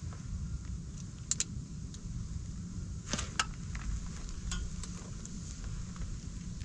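Scattered light metallic clicks and clinks of hand tools on the engine as the compression tester is moved between cylinders, over a low steady rumble.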